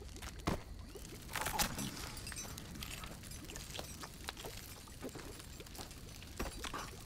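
Campfire crackling: sparse, irregular snaps and pops, quiet, with a louder cluster about a second and a half in.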